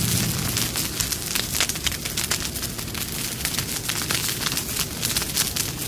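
Fire sound effect: flames burning with a dense run of sharp crackles. The low rumble of an explosion dies away at the start.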